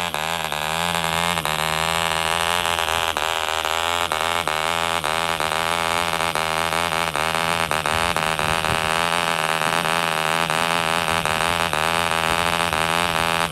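'K' Vulture Mk. 1 5 cc model diesel engine, a radially ported front-rotary-valve single cylinder, running steadily and turning a propeller; its note wavers slightly up and down.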